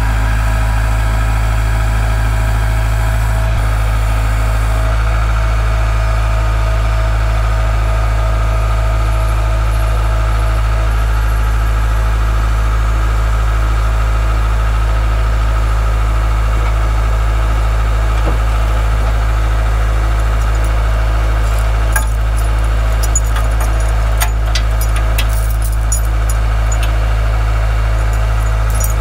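An engine idling steadily, with a run of sharp metallic clicks and clanks near the end.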